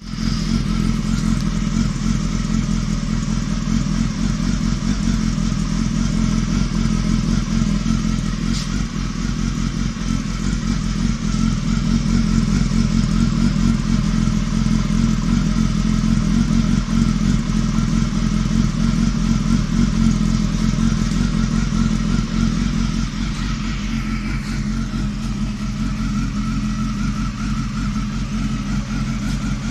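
Honda Hornet 250's inline-four engine idling steadily through an aftermarket Akrapovič-style replica slip-on muffler.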